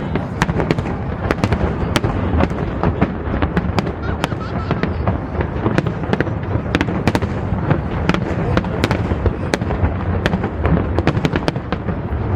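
Aerial fireworks going off in rapid succession: many sharp bangs and crackles, several a second, over a continuous low background of shell bursts.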